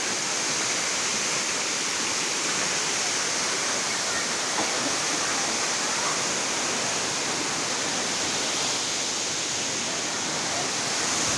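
Waterfall pouring, a steady hiss and rush of falling water.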